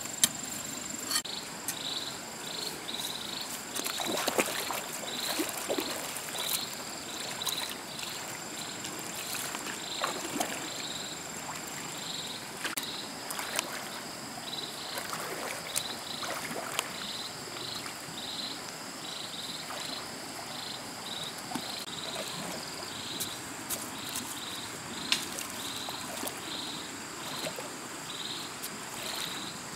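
Water sloshing and splashing as a person wades through a shallow stream, over insects chirping in a repeated pulsing rhythm.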